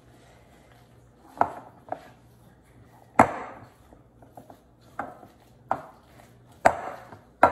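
Metal spoon knocking and scraping against a glass mixing bowl while stirring a stiff sweet potato and flour dough. There are about seven sharp clacks at uneven intervals, the loudest a little after three seconds in.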